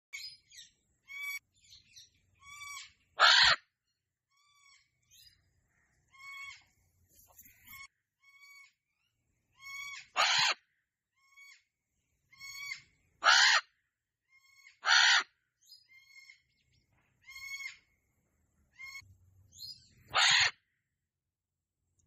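Sulphur-crested cockatoos calling: a run of short, softer squawks with five loud, harsh screeches of about half a second each scattered through.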